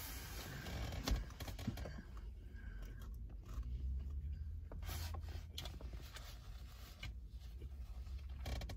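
A person chewing a mouthful of breakfast sandwich close to the microphone, with scattered soft mouth clicks, over a steady low rumble.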